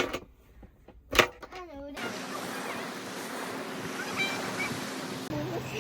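Two sharp knocks and a brief voice sound, then a steady rush of sea surf on the shore from about two seconds in, with a faint steady hum under it.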